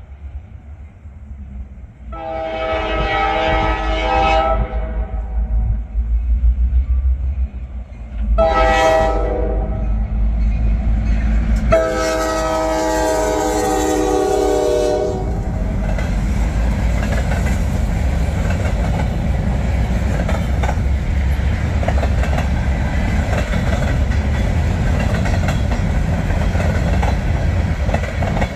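Norfolk Southern freight locomotive's multi-chime air horn sounding a long blast, a short one and a long one, the close of the long-long-short-long grade-crossing signal. From about halfway the horn stops and the freight cars rumble and clatter past steadily, wheels clacking over the rail joints.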